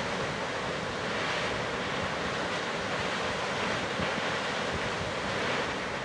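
Waterfall's falling water making a steady, even rushing noise.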